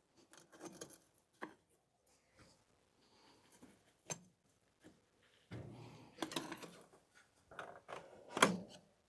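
Scattered light clicks and knocks, with stretches of rubbing and scraping in the second half, from hands handling parts of an old car.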